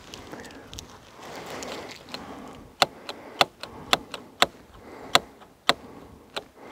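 Faint rustling, then about seven sharp clicks roughly every half second to second, starting nearly three seconds in: the brake levers on a KuKirin G2 Master electric scooter's handlebar being squeezed and released.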